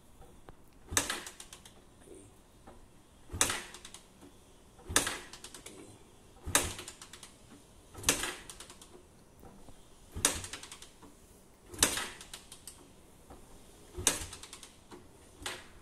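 Suzuki Raider 150 motorcycle being kicked over on its kickstarter with the ignition off: about nine kicks, one every second and a half to two seconds, each a sharp clack followed by a brief mechanical clatter as the engine turns over without firing. The engine is being cranked dry to circulate the fresh oil after an oil change.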